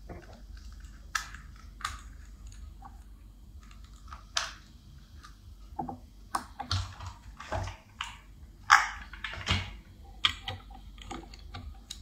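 Irregular clicks, taps and short rustles of hands handling a plastic wireless doorbell unit as AA batteries are pushed into its battery compartment. The two loudest knocks come about three-quarters of the way in.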